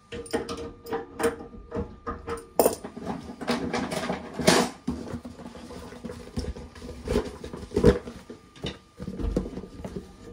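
An adjustable spanner and other metal hand tools clinking and knocking as they are worked on a radiator valve and set down, an irregular run of clicks with a few louder clanks spread through.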